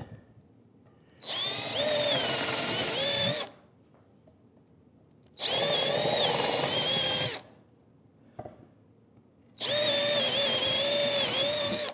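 18-volt cordless drill boring three screw holes through a wooden batten: three runs of about two seconds each with short pauses between. The motor's whine wavers a little as the bit cuts through the wood.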